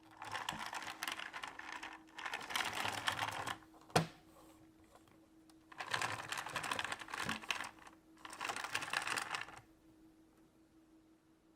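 Four bursts of rapid, dense clicking or rattling, each lasting about one and a half to two seconds, with a single sharp knock about four seconds in, over a faint steady hum.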